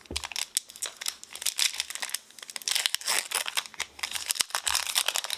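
Foil wrapper of a Pokémon TCG booster pack crinkling in the hands and being torn open, a dense run of quick crackles.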